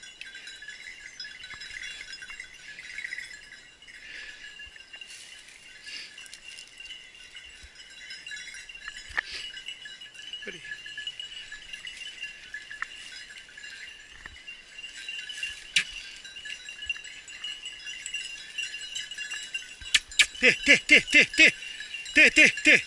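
Hunting dogs' collar bells jingling continuously as small dogs tug at a dead wild boar. Near the end a dog barks in quick runs.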